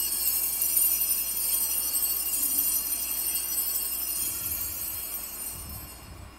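Altar bells (a cluster of small Sanctus bells) rung at the elevation of the consecrated host, a jingling ring that dies away over the last couple of seconds.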